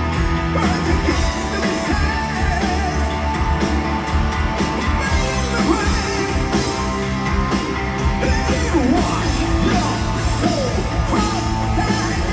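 Live heavy metal band playing loudly: electric guitars, bass and drums, with a wavering, bending melody line over them.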